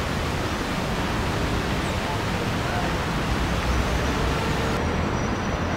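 Steady outdoor background noise: a low rumble and hiss of distant road traffic, with no distinct events.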